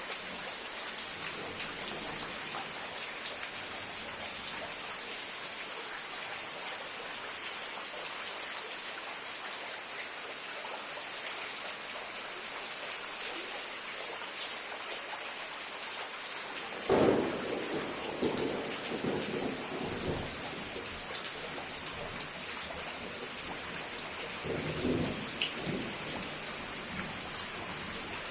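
Heavy rain falling steadily. About two-thirds of the way in, a sudden loud clap of thunder rumbles on for a few seconds, and a second, softer rumble of thunder comes near the end.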